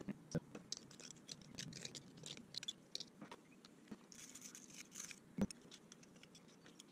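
Faint scratching and scraping of a thin metal tool working in the corroded piston bores and seal grooves of a motorcycle brake caliper, with a few light clicks of metal on metal, the sharpest about five seconds in.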